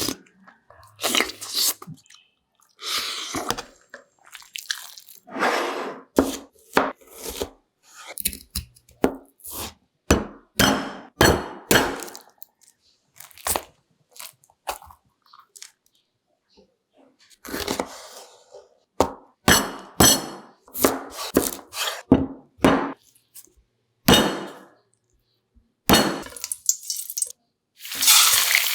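Kitchen food-preparation sounds in short clipped bursts: crunchy cuts and chops of vegetables on a cutting board, separated by moments of dead silence.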